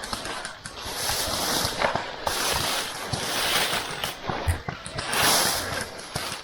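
Rustling noise rising and falling in several surges, with a few faint clicks and one short low thump about two-thirds of the way through.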